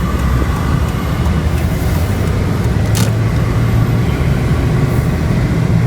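2008 Hyundai Santa Fe's V6 engine and road noise heard from inside the cabin while driving, a steady low hum; the engine runs smoothly on all six cylinders now that the new coil packs have cured the cylinder 5 misfire. A light click about three seconds in.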